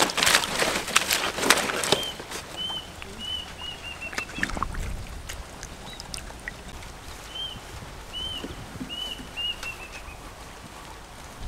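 Catfish thrashing and splashing in shallow muddy water for about the first two seconds. Then a bird calls in two runs of short repeated chirps, the notes coming closer together toward the end of each run.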